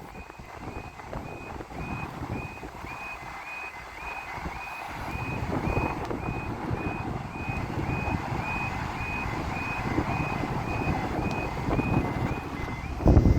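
Level crossing warning alarm sounding, a short high tone repeating about twice a second, over a rumble that grows steadily louder and jumps up sharply near the end as a train approaches.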